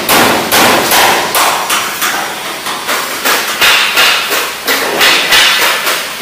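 Hammer blows on sheet-metal body panels, rapid and irregular at about three to four strikes a second, each with a short metallic ring.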